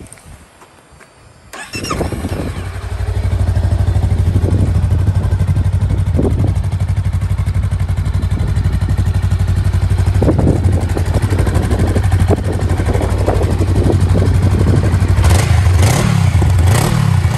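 A Honda Rebel 500's 471 cc parallel-twin engine, on its stock exhaust, is started about a second and a half in. It settles into a steady idle, with a few short throttle blips near the end.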